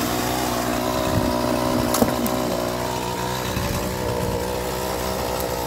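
Gasoline chainsaw running steadily at idle, with a single sharp crack about two seconds in.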